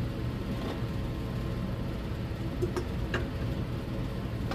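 Steady low hum with two light clicks about two and a half and three seconds in, as a steel turbo exhaust manifold is handled and set against a magnetic welding holder on a workbench.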